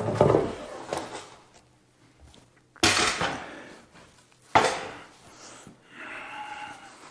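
Clattering knocks of hard objects being handled and set down, three sharp hits about two seconds apart, each ringing off briefly.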